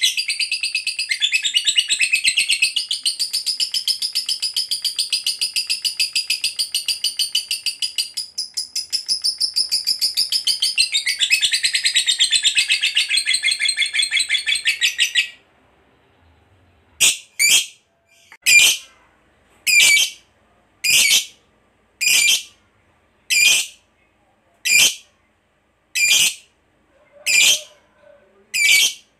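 Lovebird singing its long, fast chattering trill (the 'ngekek panjang' of a fighter lovebird) for about fifteen seconds, which breaks off suddenly. After a short pause it gives single short, sharp chirps, a little more than one a second.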